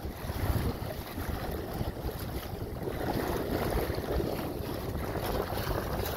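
Strong wind buffeting the microphone over choppy water splashing against a plastic kayak hull as it pushes through the waves under power.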